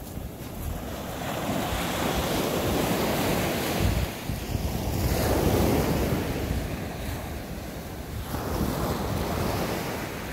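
Waves washing onto the shore, swelling and easing three times, with wind buffeting the microphone.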